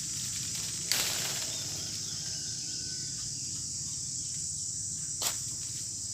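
Steady high-pitched insect chorus, with two sharp knocks, a loud one about a second in and a smaller one near the end.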